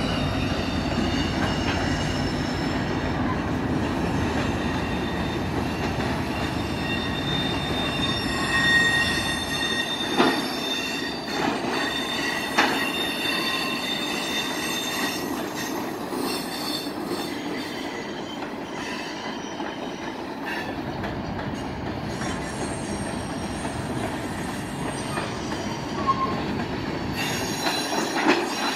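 Diesel-hauled freight train rolling past, its steel wheels squealing against the rails in several steady high tones over the rolling noise of the cars. The low rumble of the diesel locomotives fades after about ten seconds as the freight cars follow. A couple of sharp clanks come between ten and thirteen seconds in.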